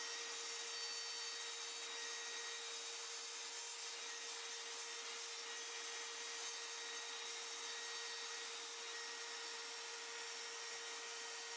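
Makita router on a Lowrider2 CNC spinning a 1/8-inch straight bit and cutting, a steady high whine with an even hiss that does not change.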